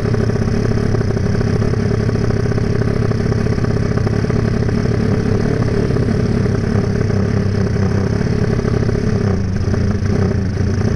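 Honda Tiger motorcycle's single-cylinder four-stroke engine, built up to 300cc, running steadily at a moderate, even pace while riding along. The engine is still being run in, so it is held back rather than revved hard.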